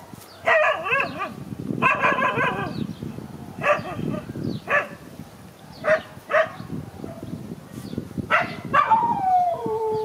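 A dog barking in spells. There are two drawn-out, wavering barks in the first three seconds, then short single barks about a second apart, and near the end the sound trails off into a falling whine.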